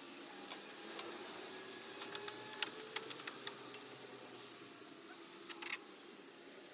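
A run of sharp clicks and light taps, with a short rattle a little later, over a faint steady drone that slowly shifts in pitch.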